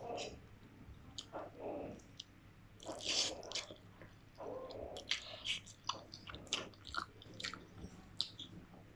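Close-up mouth sounds of a person chewing boiled instant noodles, with irregular wet clicks and smacks.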